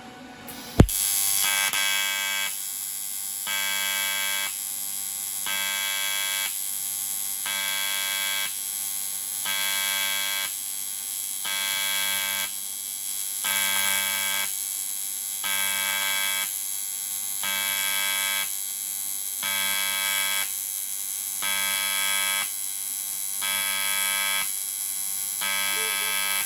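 TIG welding arc buzzing, starting with a sharp click as the arc strikes about a second in. The buzz then swells and eases in an even, slow pulse.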